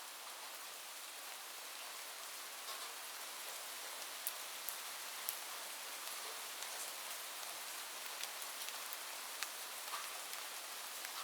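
Light rain falling steadily: a soft, even patter with scattered sharper drips.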